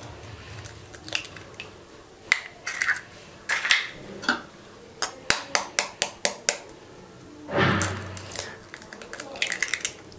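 Sharp taps and clicks of eggs being cracked against a bowl and emptied into it, in several clusters, with a short scraping rustle near the end.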